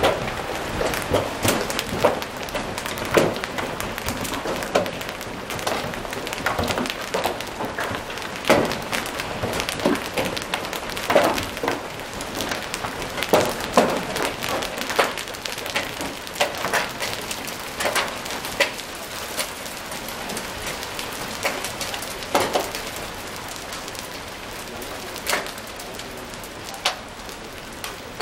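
Large hailstones, reported as baseball-sized, falling and striking hard surfaces: sharp, irregular impacts, often one or two a second, over a steady hiss of falling rain and hail.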